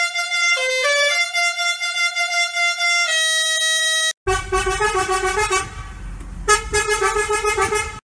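A bus horn sound effect pitched into a short tune of held notes, stepping up and down between pitches. It cuts off about four seconds in. A different melodic horn-like clip with a low rumble beneath it follows, dropping away briefly in the middle before the tune returns.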